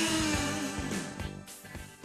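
Outro music ending: a final strike followed by a held chord that fades away.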